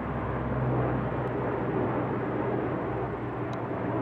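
Steady drone of a formation of three four-engine propeller aircraft flying overhead, with a low engine hum under the noise.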